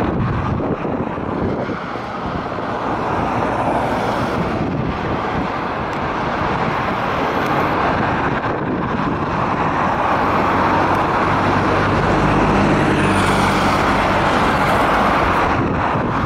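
Road traffic noise with wind buffeting the microphone. About twelve seconds in, a car's engine hum rises and holds as a car comes close.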